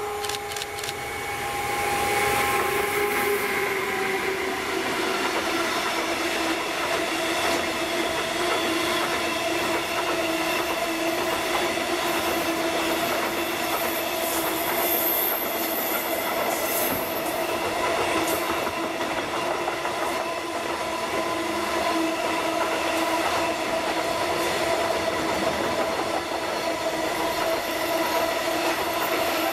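Container freight train passing close by behind a Siemens Vectron electric locomotive (EU46-517). The locomotive goes by with a short whine in the first few seconds, then the loaded container wagons roll past with a steady ringing squeal from the wheels.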